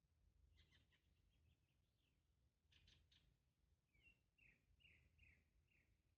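Very faint wild birds chirping: scattered short chirps, then a quick run of five or six notes, each falling in pitch, in the second half.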